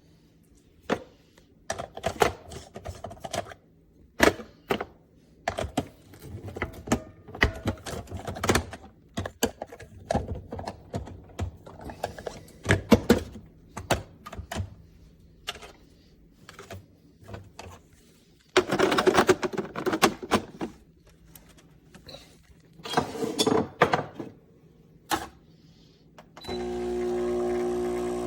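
Clicks, knocks and clatter of parts being handled on a CASABREWS 20 bar espresso machine, with two longer rattling scrapes in the second half. Near the end a steady electric buzz starts, the machine's pump running.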